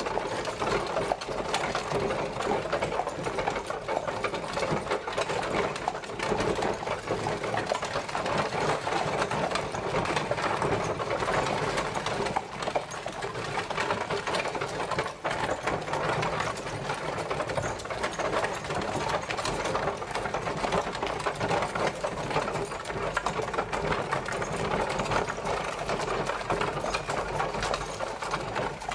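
Horse-drawn carriage travelling: a steady, fast clatter of its wheels and body rattling without a break.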